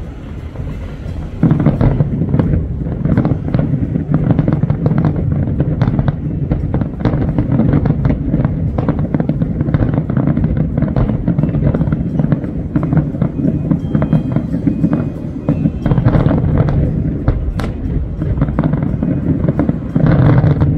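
Aerial fireworks display: shells bursting in a rapid barrage of many overlapping bangs, starting suddenly about a second and a half in and running on densely, with another loud surge near the end.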